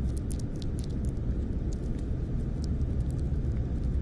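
Low, steady rumble with scattered faint high clicks and ticks: a muffled underwater ambience.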